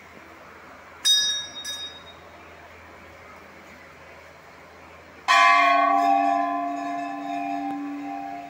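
Hindu temple bells being rung: a sharp, high double ring about a second in, then a louder, deeper bell struck once about five seconds in, ringing on and slowly fading.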